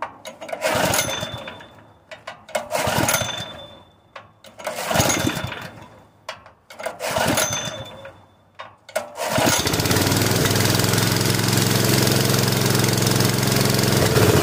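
Propane-fed Honda GX160 single-cylinder engine firing in short bursts about every two seconds, then catching about nine seconds in and running steadily. It keeps popping and dying, which the owner believes is down to weak valve springs and a needed valve job.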